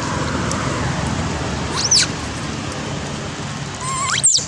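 Baby long-tailed macaques giving two short, high-pitched squeaks: one about two seconds in and a sharper rising one near the end, over a steady background hiss.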